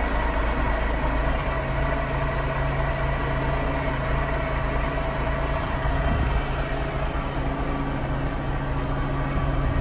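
Heavy truck diesel engine idling steadily.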